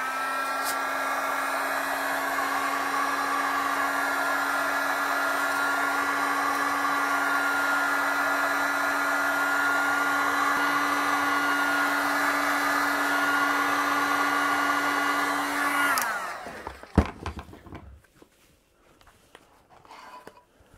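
Electric heat gun switched on, its fan motor rising in pitch as it spins up, then running steadily with a hum and a rush of air. About sixteen seconds in it is switched off and winds down, and a few sharp knocks follow.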